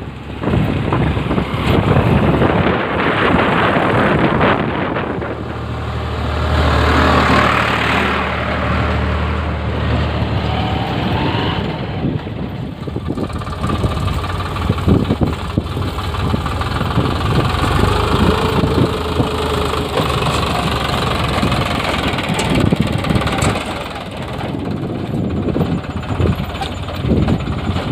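Eicher 557 tractor's diesel engine running, with irregular knocks and clatter throughout; the engine note grows heavier and steadier around six to nine seconds in.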